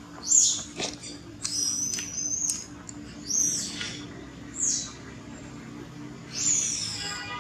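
Birds calling: about five short, high chirps and whistles spaced a second or so apart, several falling in pitch, with one held whistle about two seconds in.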